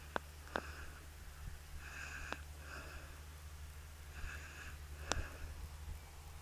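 Faint, steady low drone of a Case tractor engine working in the field, heard from a distance. Short high chirps come in pairs every two to three seconds, with a few sharp clicks.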